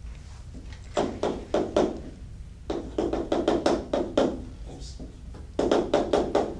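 Chalk writing on a blackboard: runs of quick, sharp taps in three spells, about a second in, around three seconds in, and near the end.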